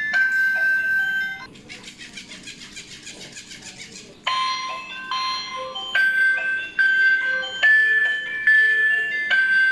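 Battery-operated toy fish playing a simple electronic jingle of held beeping notes that step up and down. About one and a half seconds in the tune gives way to a quieter, fast, even buzzing for about three seconds, then the jingle picks up again.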